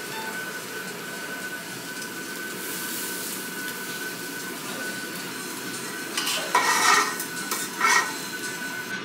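Wagyu steak slices sizzling on a yakiniku table grill's wire mesh, over the steady hum of the grill's smoke extractor. About six seconds in, and again near eight seconds, there are brief louder clatters of tableware.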